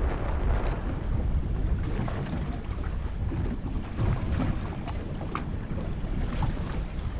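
Wind buffeting the microphone over water sloshing against a boat's hull, with a few faint light ticks.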